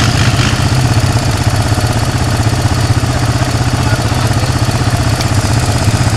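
Honda side-by-side UTV engine idling as the vehicle creeps along at low speed, a steady low drone with no revving.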